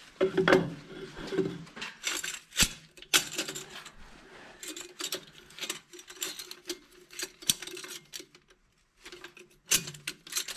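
Metal clinking and rattling as a band clamp is fitted and tightened around a new exhaust brake on the turbocharger outlet, with a hand tool working the clamp bolt. There are irregular sharp clicks, some in quick runs, over a faint steady hum.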